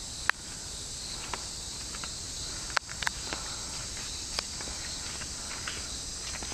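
A steady, high-pitched chorus of forest insects, with scattered footsteps and sharp clicks of people walking on a dirt trail.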